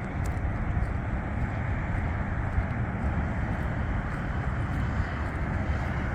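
Steady hum of road traffic from a busy street close by.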